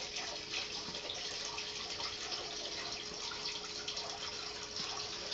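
A steady hiss like running or trickling water, with a faint steady hum.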